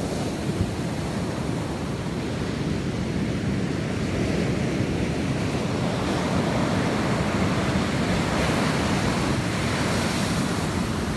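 Ocean surf washing steadily on a beach, with wind buffeting the microphone.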